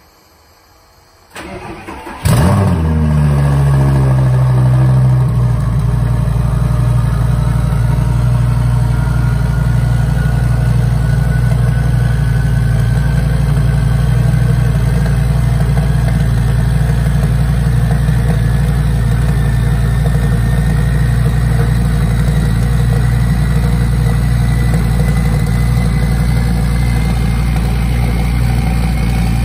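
Twin-turbocharged Audi R8 cold start. About a second and a half in, the starter cranks briefly. The engine catches with a loud flare of revs that falls away over the next few seconds, then settles into a steady cold idle.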